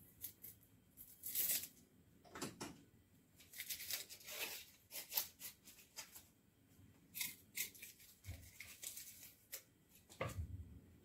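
Dry, papery shallot skins being peeled off with a small knife: faint, irregular crackling and tearing.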